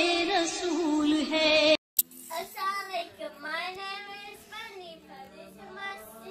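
A singing voice over music that cuts off suddenly about two seconds in. After a short gap and a click, a young girl's high voice speaks in a sing-song way.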